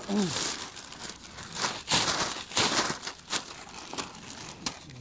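Plastic garbage bag being opened, a series of crinkling rustles in irregular bursts. A short falling voice sound comes at the very start.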